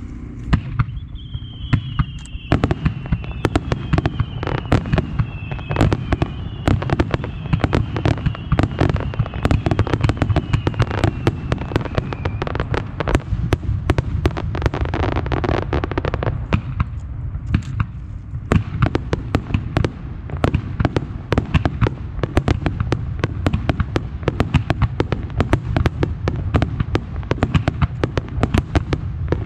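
Star mine fireworks barrage fired from two positions: a dense, rapid string of launches and bursts over a steady low rumble. A series of falling whistles runs through the first dozen seconds, and there is a brief thinning of the bursts just past halfway.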